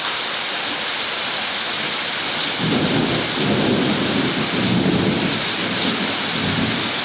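Torrential rain pouring down steadily in a loud, even hiss. From about two and a half seconds in, a low rumble rolls in and swells in waves over the rain.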